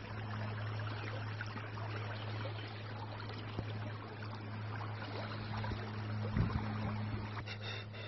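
A steady rushing outdoor noise with a low steady hum underneath.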